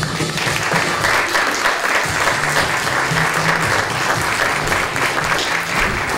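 Theater audience applauding, starting abruptly and easing off slightly near the end.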